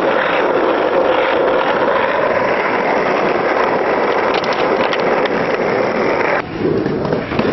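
Skateboard wheels rolling over rough asphalt, a steady rolling noise, with a few light clicks a little past the middle as the skater pops toward a flat bar. The rolling noise cuts off abruptly near the end.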